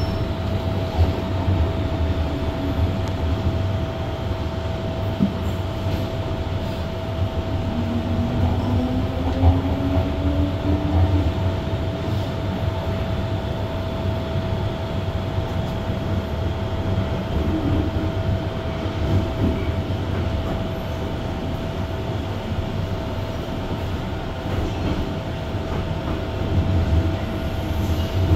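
MTR M-Train electric multiple unit running along the line: a steady low rumble of wheels on track with a constant hum, and a brief faint rising whine about a third of the way in.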